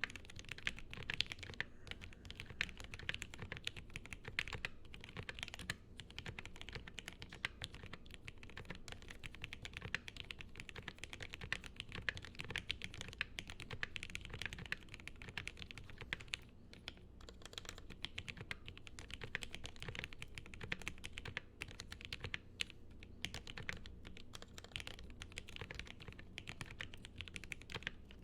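Steady, fast typing on a gasket-mounted custom mechanical keyboard with lubed linear Gateron Yellow switches and CRP APL keycaps: a dense run of soft clacks with a few brief pauses.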